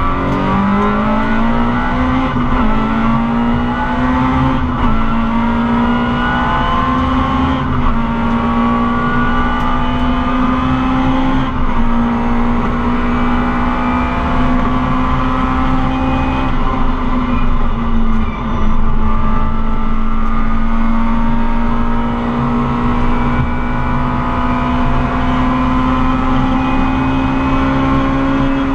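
Rally car's engine heard from inside the cabin, revving up over the first couple of seconds and then held at high revs, fairly steady with a few brief dips, over constant road and tyre noise.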